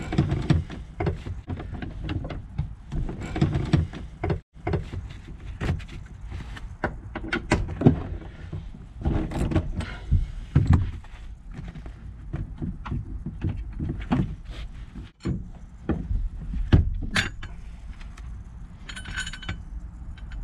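Ratchet wrench clicking and knocking as the bolts of a Toyota Tacoma's rear seat bracket are loosened and pulled out, with metal clinks of tools and bolts.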